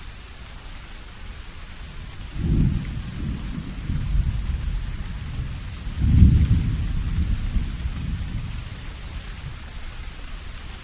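Thunder rolling in two deep waves over steady rain: a low rumble swells about two seconds in, and a second, louder roll follows a few seconds later and slowly dies away.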